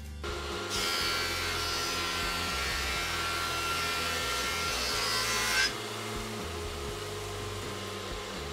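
Stationary power planer cutting a glued-up hardwood board: a steady loud cutting noise with a whine starts about a second in and stops sharply about five and a half seconds in as the board clears the knives. The machine then keeps running unloaded, quieter.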